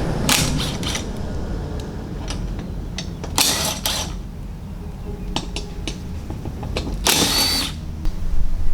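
Cordless power tool running in three short bursts a few seconds apart, with clicks of metal between them, as bolts are undone to remove the Toyota Prado's stock front bash plate.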